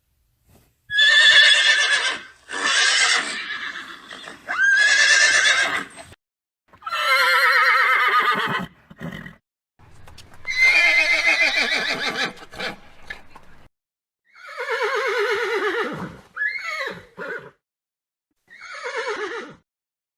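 Horse whinnying, a series of about seven separate neighs of a second or two each with short gaps between them, several ending in a falling pitch.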